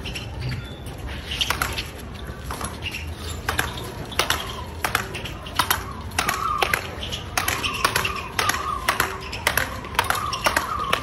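Speedball rackets striking the tethered ball in a rally: a steady run of sharp hits, about one every half second to second, starting a second or two in.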